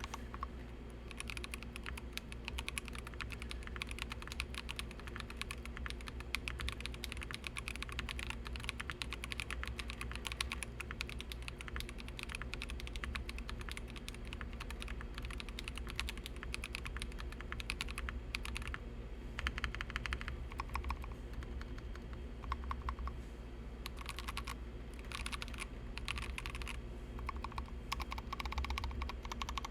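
Continuous fast typing on a 60% custom mechanical keyboard with Akko CS Ocean Blue 55g tactile switches, PBT Cherry-profile keycaps and a foam-dampened aluminum case: a dense stream of key clicks and clacks with a few brief pauses, under a steady low hum.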